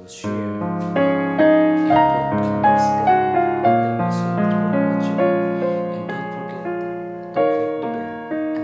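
Background piano music: a gentle melody of struck notes over held lower notes, each note ringing and fading.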